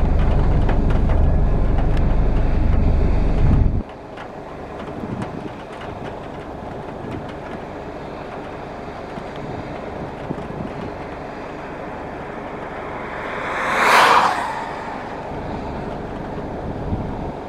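Claas Lexion 6800 combine harvester running at work. A heavy low rumble for the first four seconds cuts off abruptly. The machine then carries on quieter, with one brief swell a few seconds before the end.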